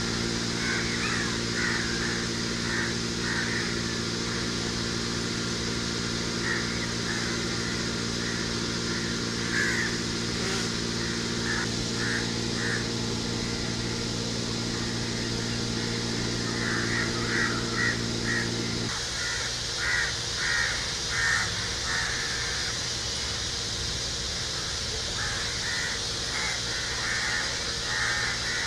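Crows cawing repeatedly in short runs, over a steady low hum that cuts off suddenly about two-thirds of the way through.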